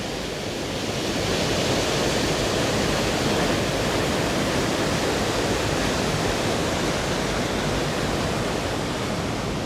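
Waterfall roaring steadily, water pouring over the falls, slightly louder after about a second.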